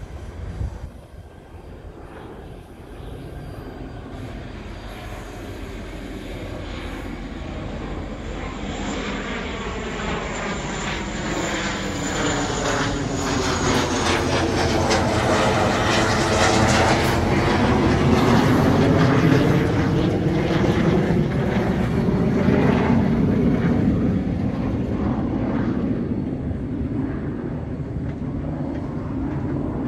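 Diesel locomotive hauling a freight train approaches and passes. Its engine rumble builds steadily, is loudest about halfway through, and then slowly fades as it moves away. Wheels click over the rails while the train is closest.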